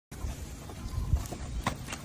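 A few light knocks and clicks over low thudding, from kitchen items being handled.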